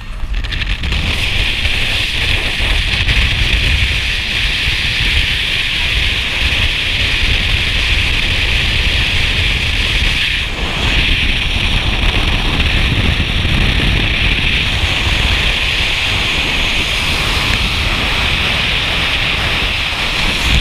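Loud, steady wind noise on an action camera's microphone from a moving car, over a low road and engine rumble. The noise dips briefly about halfway.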